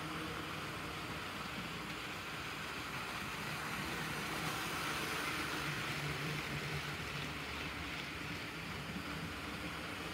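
HO scale model train running past on the track, the whir of its motor and wheels on the rails. It swells a little about halfway through as it comes closest, then eases off.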